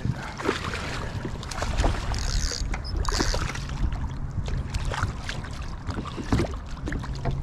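Water splashing and sloshing around a fishing kayak, with scattered knocks and clicks over a steady low rumble of wind, as a hooked striped bass is brought in.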